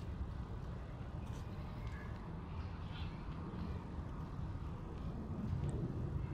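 Steady low rumble of outdoor background noise, with a few faint high sounds scattered through it.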